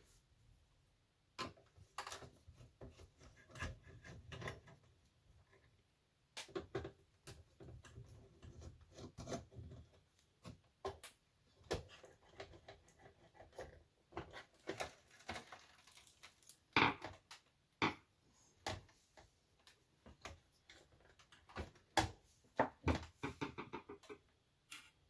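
Irregular clicks, knocks and rattles of parts being handled and lifted out while a JVC HR-D160EG VHS video recorder is taken apart, with quieter rustling between them.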